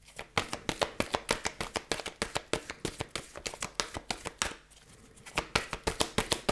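A deck of oracle cards being shuffled by hand: a quick run of light card slaps, about seven a second, pausing briefly near the end before starting again.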